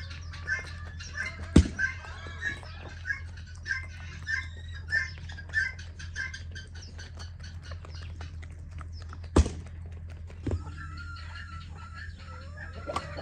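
Chickens clucking in a run of short calls about twice a second, with a few sharp knocks, over a steady low hum.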